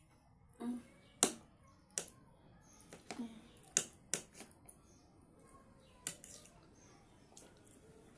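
Cutlery clicking against a plate as someone eats: about half a dozen sharp, irregular clicks.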